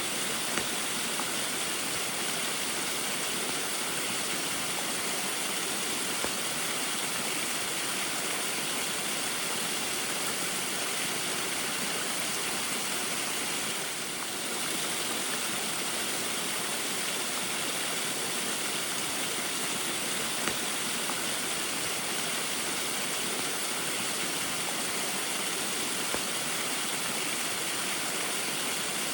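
A small waterfall running steadily in the rain: a constant rush of falling water, dipping briefly in level about halfway through.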